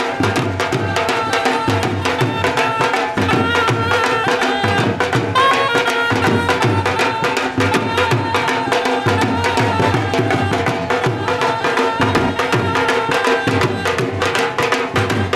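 Dhol drums playing a steady, fast rhythm, with a pitched melodic line over the drumming.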